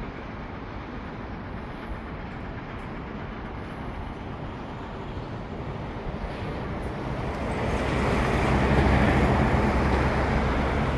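Steady vehicle rumble that swells louder about eight seconds in, with a low hum coming up under it.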